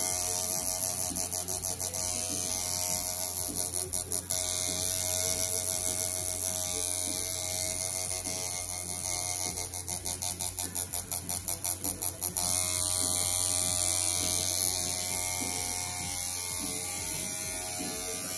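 Pen-style tattoo machine running with a steady electric hum as the needle shades skin, with a fast, even flutter over about a second to four seconds in and again from about eight to twelve seconds.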